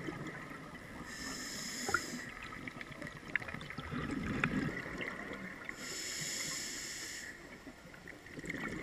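A scuba diver breathing through a regulator, heard underwater: two hissing inhalations, about a second and a half each and some four seconds apart, with a low bubbling exhalation between them.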